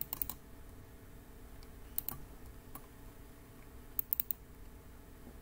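Sharp clicks at a computer: a quick few right at the start, single clicks about two seconds in and just under three, and a cluster of about four around four seconds in, over a faint steady hum.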